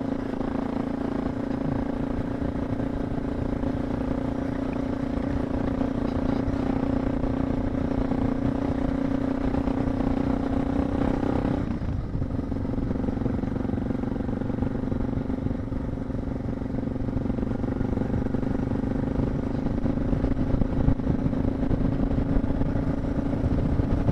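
Suzuki DR650's single-cylinder four-stroke engine pulling steadily under load up a steep dirt climb, with a short dip in revs about halfway through before it pulls on.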